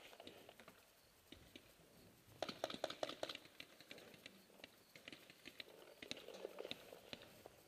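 Paintball markers firing: scattered sharp pops, with a quick burst of about eight shots in rapid succession about two and a half seconds in.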